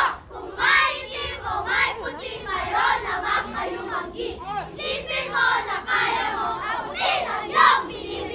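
Many children's voices at once, overlapping one another without a break, with some voices sounding sung rather than spoken.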